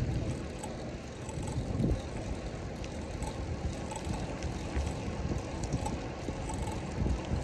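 Steady low rumble of street traffic mixed with wind on the microphone.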